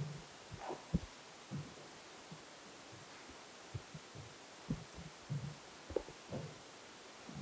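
Soft, irregular low thumps and bumps over quiet room tone: handling noise from a handheld microphone carried by someone walking about.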